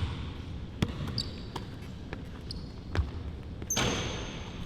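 A basketball bouncing on the court, with sneakers squeaking on the floor in short chirps and a longer squeak near the end.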